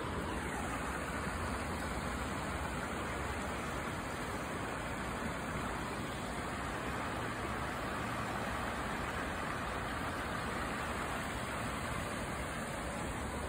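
Steady rush of a shallow creek running over rocks and riffles.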